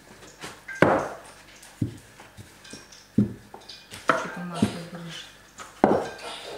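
Wooden rolling pin knocking and rolling on dough over a cloth-covered counter: a series of dull knocks about a second apart.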